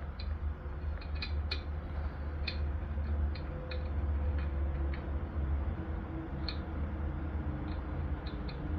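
Scattered sharp metal clicks and creaks, irregularly spaced, from a wrench turning a bolt against a cut pin to force a rust-seized pin out of a wood chipper's motor joint, over a steady low hum.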